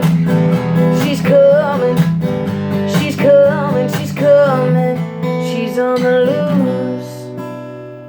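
Strummed acoustic guitar playing the song's closing bars under a wordless vocal melody that bends up and down. About seven seconds in, the playing stops on a final chord that rings and fades away.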